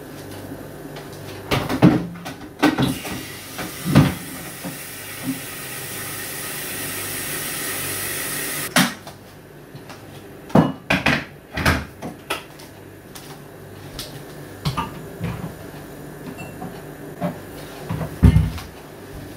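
Kitchen handling sounds while a hot drink is made: scattered knocks and clinks of cupboards, cups and dishes, and a rushing hiss that builds for about five seconds and stops abruptly about nine seconds in.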